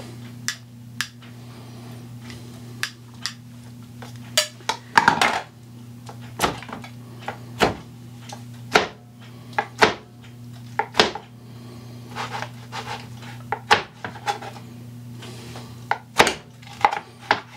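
Chef's knife cutting barbecued rib tips into pieces, the blade knocking on a plastic cutting board in a string of sharp, irregular chops. A steady low hum runs underneath.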